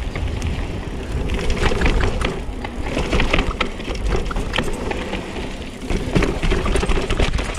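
Mountain bike riding down a rough dirt trail: tyres crunching over stones and the bike rattling and knocking over bumps, many sharp clicks over a steady low rumble.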